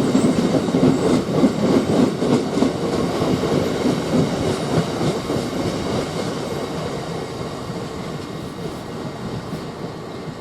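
A train running along the track past the platform, its rumble dying away steadily as it moves off, with scattered wheel clicks over the rails.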